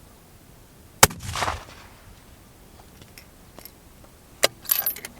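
A single target rifle shot about a second in, with a short rolling echo after the crack. A second, shorter sharp crack follows near the end.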